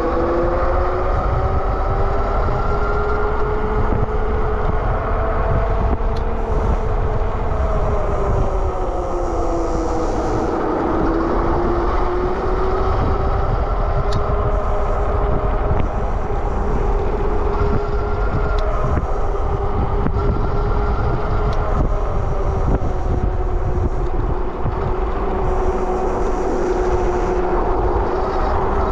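Super73 RX electric bike under way on a road: a steady whine that slowly rises and falls in pitch with speed, over a constant low wind rumble on the microphone.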